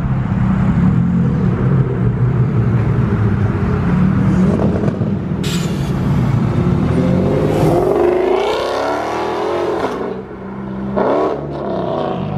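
Car engines rumbling as cars pull out, then one revving and accelerating away with its pitch climbing over a couple of seconds, and a second shorter rev about eleven seconds in.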